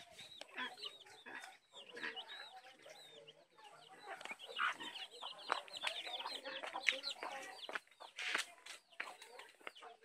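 Chickens: a hen clucking among her chicks, which peep in many short, high cheeps.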